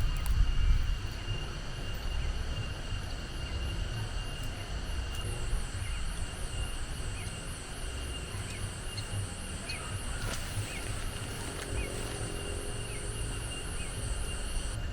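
Insects trilling steadily in high, even tones. A second, higher pulsing trill joins about five seconds in, and a run of short repeated chirps comes through the middle. A low rumble of wind on the microphone lies underneath.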